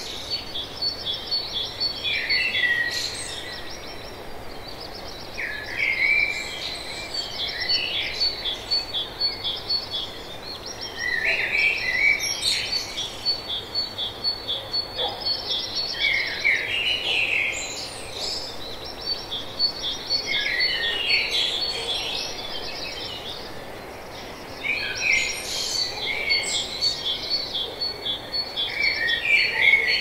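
Tropical forest birds calling and chirping in short phrases every few seconds, over a rapid high ticking trill that keeps coming back and a steady background hiss.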